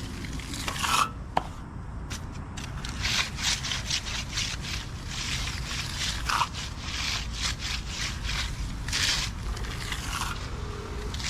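Concrete finishing tools scraping and rubbing across fresh wet concrete in quick, irregular repeated strokes, becoming busier about two seconds in.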